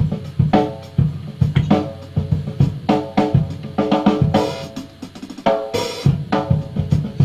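Drum kit playing: a quick, uneven run of snare and bass drum hits with ringing drum tones, and cymbal crashes about four and six seconds in.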